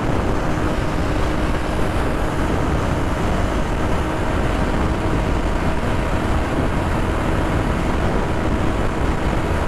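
Aprilia 125 motorcycle with its single-cylinder four-stroke engine holding a steady cruising speed, its hum buried under a steady rush of wind on the microphone.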